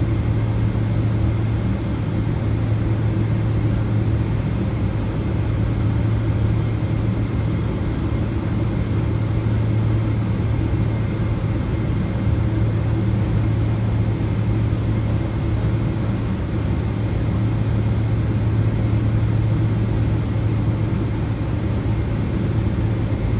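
Steady cabin noise inside a Boeing 777-206ER taxiing after landing: the GE90 turbofan engines at idle, with a strong low hum and faint steady whines over an even rush.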